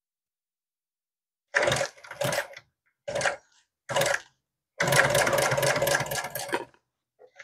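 Industrial sewing machine stitching vinyl with welt cord: four short bursts of stitching, then a longer steady run of about two seconds with the rapid, even clatter of the needle.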